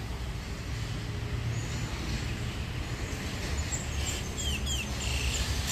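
Steady low rumble of distant road traffic, with a run of short, high, falling bird chirps in the second half.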